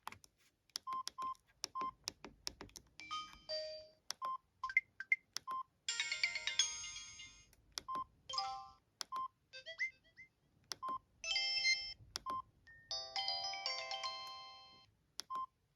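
A Samsung SGH-E350 mobile phone plays short snippets of downloaded polyphonic ringtones, each stopping after a second or two. Between them come repeated short key beeps and clicks.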